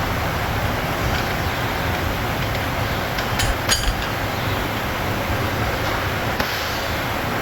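Metal tools clinking sharply twice against engine parts, about three and a half seconds in, over a steady rushing background noise.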